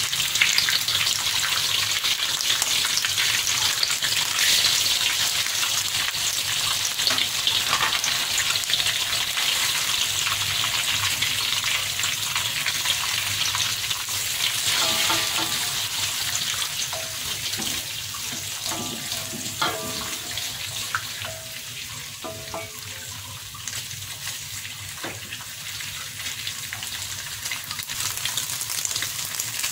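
Eggs frying in hot oil in a wok, a steady sizzle that grows somewhat quieter in the second half, while a spatula later breaks them up.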